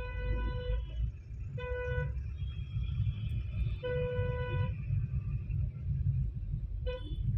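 Vehicle horns honking in slow city traffic: about five separate honks, most under a second long, one of them higher-pitched and one a brief toot near the end, over a steady low rumble of engines and road noise.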